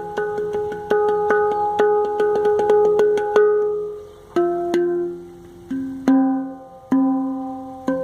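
Steel handpan tuned to F minor, struck by hand. Quick repeated strikes on one note for about the first three seconds, then slower single notes that ring out and fade, stepping down to lower notes.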